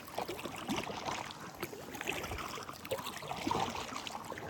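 Kayak paddling: water splashing and trickling off the paddle blades as they dip and lift, in irregular small splashes.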